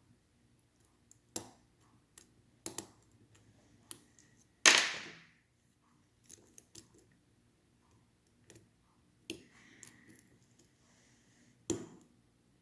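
Lock picking in a Schlage Primus cylinder: scattered small metallic clicks of the pick and tension wrench working the pin tumblers, with one louder scraping rattle about a third of the way in.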